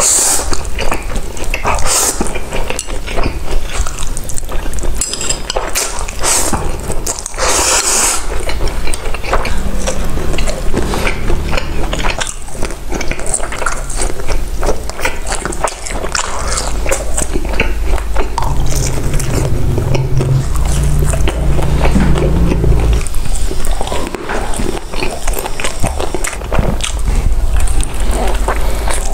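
Close-miked eating: biting and chewing food, with a dense run of short crackling crunches and low thumps.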